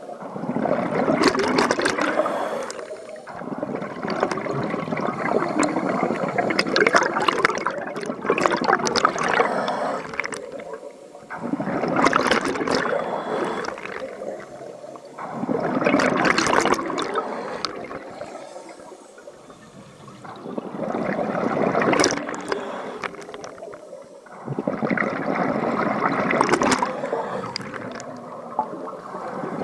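Scuba diver's exhaled breath bubbling out of the regulator underwater, in gurgling spells every few seconds with quieter pauses while the diver breathes in.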